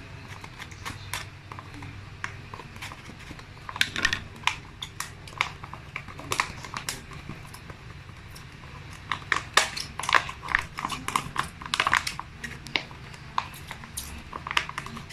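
Slime being squished and pressed into a glass by hand: irregular sticky clicks and pops, thickest about four seconds in and again from about nine to twelve seconds.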